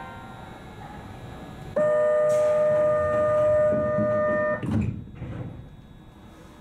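Subway train door-closing warning buzzer: one steady, even-pitched buzz lasting about three seconds that cuts off sharply, followed at once by a short low thud.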